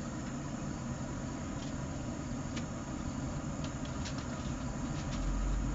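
Rec Tec RT-590 pellet grill running with a steady low fan hum, with a few faint clicks. A heavier low rumble comes in near the end.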